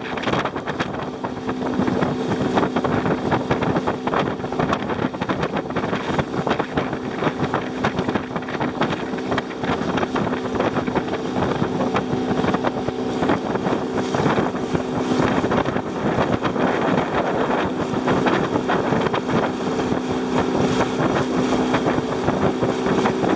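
Small fishing boat's motor running at a steady speed, with water splashing along the hull and wind buffeting the microphone.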